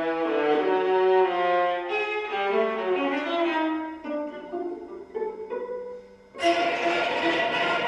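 String quartet (two violins, viola and cello) playing contemporary classical music: overlapping sustained bowed notes that thin out into short, scattered notes, then about six and a half seconds in a sudden loud, rough, noisy passage of bowing.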